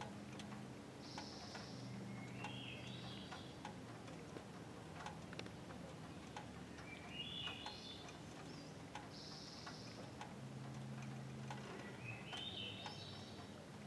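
Wild birdsong: a short buzzy trill twice and a quick rising run of high notes three times, repeating about every five seconds. Scattered faint clicks sound under it.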